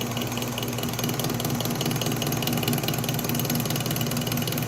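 Atlas metal lathe running under power, taking a light cut of about ten thousandths, with a steady hum and a fast, regular ticking from the machine.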